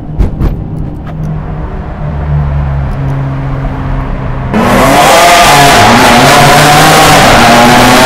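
Ferrari 599 GTB's V12 in Sport mode, heard from inside the cabin. After a few clicks near the start the engine runs at moderate throttle. About four and a half seconds in it jumps to full throttle, revs climbing into a loud, high wail like a racing motorcycle, in a road tunnel.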